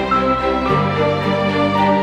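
Background music: held chords that shift to a new chord under a second in.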